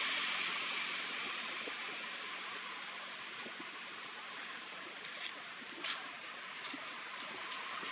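Steady, even hiss of outdoor background noise, with three short sharp clicks a little past halfway, the middle one the loudest.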